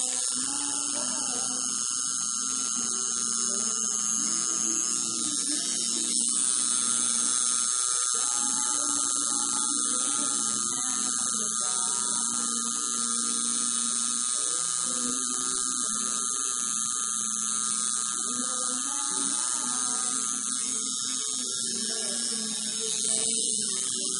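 Electric tattoo machine buzzing steadily as it lines a stencilled design on the skin of a calf, with a steady high-pitched whine. A fainter, wavering sound sits underneath.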